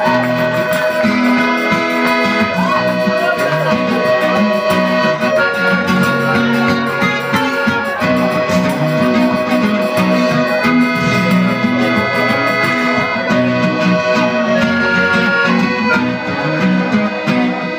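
Live band music led by a piano accordion playing the melody in long held notes that change every second or two, over a steady accompaniment.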